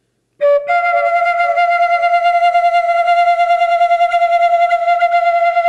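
Atenteben, a Ghanaian bamboo flute, playing a slow Ewe funeral dirge: about half a second in, a short lower note, then one long held note with a slight vibrato.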